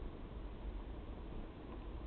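Steady hiss and low rumble, with a few faint clicks near the end as a squirrel shifts about in the sunflower seeds of a feeder tray.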